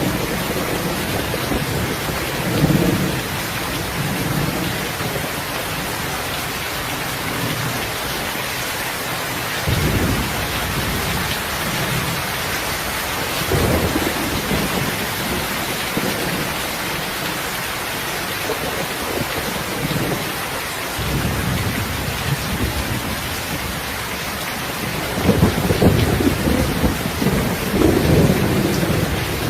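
Steady rain hiss with low rolls of thunder rumbling several times through it, the loudest and longest near the end.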